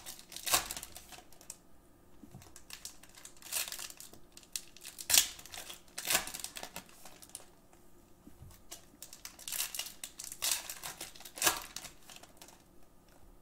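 Basketball trading cards being handled and set down on a stack on a table: irregular light taps and slaps, roughly a second or two apart, with soft rustling between them.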